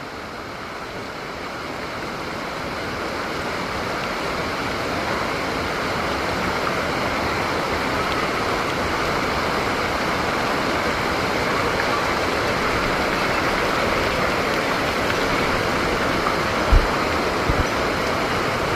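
Steady rush of water that slowly grows louder, with two short low thumps near the end.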